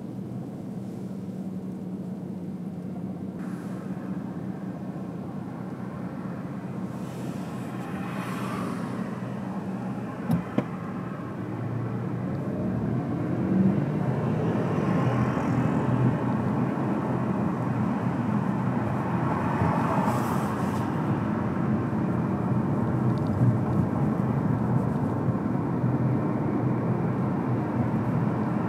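Car driving: a steady low engine hum and road noise, getting louder about twelve seconds in, with one sharp click about ten seconds in.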